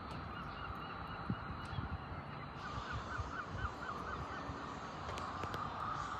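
Birds calling in quick runs of short repeated notes, the clearest run about three seconds in, over steady background noise.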